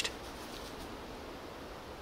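Faint, steady forest background hiss, with no distinct sound standing out.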